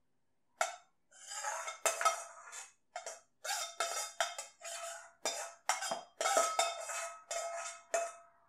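A long metal spoon scraping and knocking against a metal wok as biryani rice is scooped out onto a plate. About a dozen quick strokes start about half a second in, and the pan rings faintly between them.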